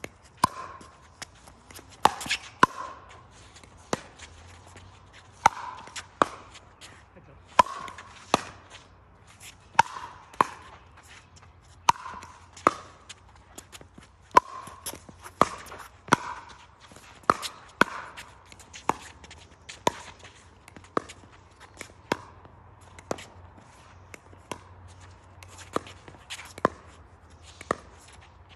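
Sharp pops of pickleball paddles striking a hard plastic pickleball during a long rally, about one hit a second, some coming in quick pairs.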